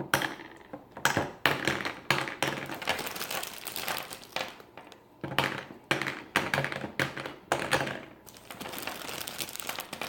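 Double Bubble gumballs being loaded into a small plastic gumball machine: crinkling of the packaging with a dense run of taps and clatters as the gumballs knock against the plastic.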